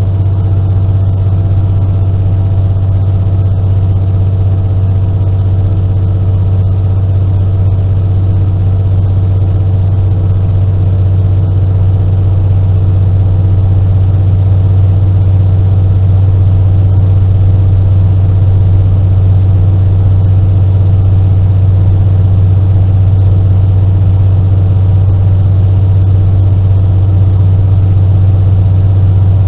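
Diesel engine of an X 73500 railcar running under steady power, heard from the driver's cab: a constant deep hum with several steady tones above it, the revs holding level throughout.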